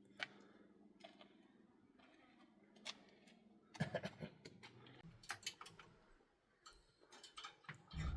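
Scattered sharp clicks and taps, with a quick cluster of them about four to five seconds in.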